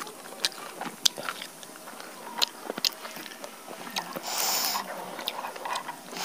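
Close-miked eating of a roasted chicken: chewing with many small wet mouth clicks, and a short crackling tear as the roasted chicken is pulled apart by hand about four seconds in.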